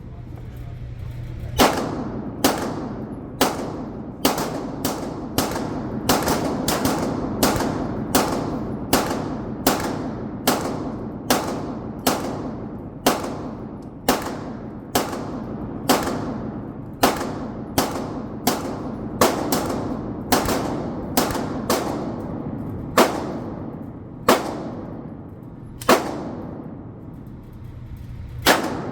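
Century Arms AP5K 9mm pistol firing a long string of shots, about two a second, each with a short ringing tail. The pace slows to a few spaced shots near the end.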